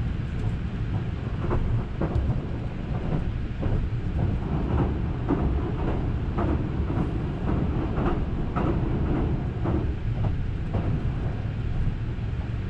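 Ride noise inside a JR West Haruka limited express Green car running along the line: a steady low rumble with irregular clacks from the wheels on the track.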